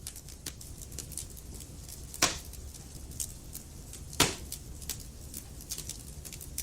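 Wood fire burning in a fireplace, a steady low rumble with frequent small crackles and two loud pops about two and four seconds in.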